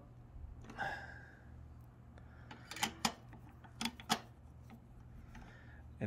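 A socket driver tightening the ignition coil's mounting bolts on a Kohler XT675 mower engine: a few sharp metal clicks in two pairs, about a second apart, over a faint low hum.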